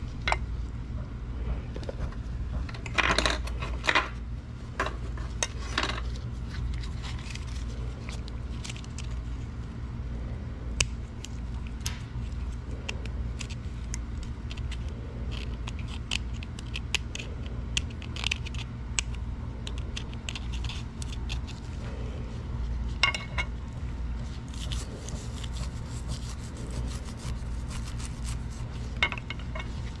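Scraping and small metallic clinks of a tool working old paint off antique mortise-lock hardware, in scattered strokes with louder bursts now and then, over a steady low hum.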